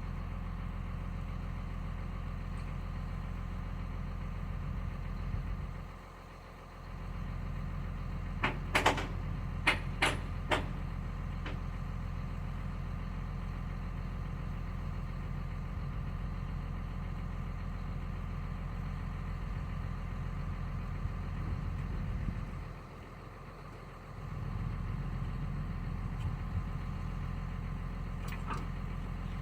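Excavator's diesel engine running steadily, dropping away briefly twice. About eight seconds in comes a quick run of five or six sharp, loud knocks, with a couple of fainter knocks later.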